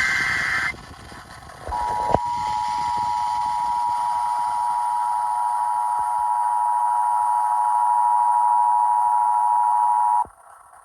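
Emergency Alert System attention signal: two steady tones sounded together for about eight seconds, then cut off abruptly. It is preceded by the end of a short screechy burst of the alert's digital header data.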